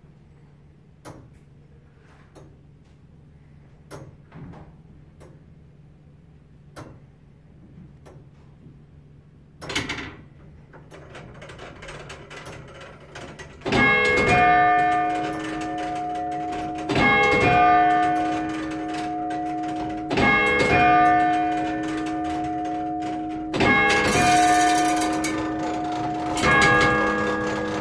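Tower clock movement (J. Moore & Sons, 1829) ticking with slow separate clicks. A louder clack about ten seconds in is followed by a rising whirr as the striking train runs. Then the bell is struck five times, about every three and a half seconds, each stroke ringing on with a long humming tone.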